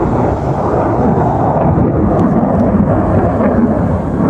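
Jet roar of an F-22 Raptor in flight, from its twin Pratt & Whitney F119 afterburning turbofans: a loud, steady low rumble.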